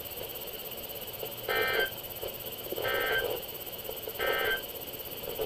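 NOAA Weather Radio EAS end-of-message data tones: three short warbling bursts about a second and a half apart, over a steady radio hiss, marking the end of the tornado warning message.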